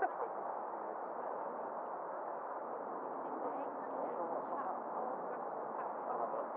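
Steady hiss of an air traffic control radio channel between transmissions.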